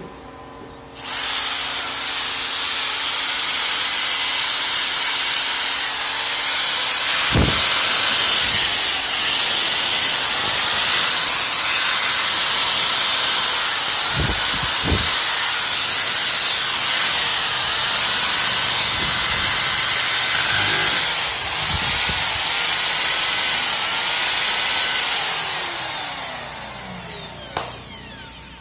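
Electric drill machine's brushed motor switched on about a second in, running at high speed with a loud hiss and whine whose pitch wavers a little. It winds down with a falling whine near the end. A few low knocks come in between.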